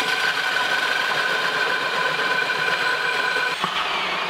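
Ridgid 18V Octane brushless hammer drill spinning a hole saw through particleboard: a steady motor and gear whine with cutting noise. The whine shifts in pitch at a short click about three and a half seconds in.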